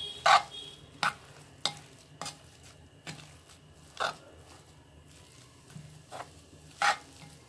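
A hand mixing mashed boiled potato with chopped onion and spices in a clay bowl: short, irregular squishing slaps, about one a second, with a pause in the middle.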